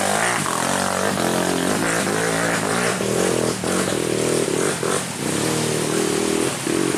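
Trail dirt-bike engines revving, the pitch rising and falling with the throttle, with short drops between throttle openings.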